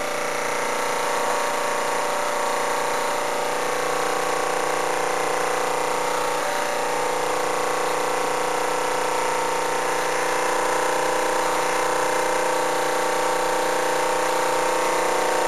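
Mamod SE3 twin-cylinder toy steam engine running on live steam: a steady whir with a hiss over it.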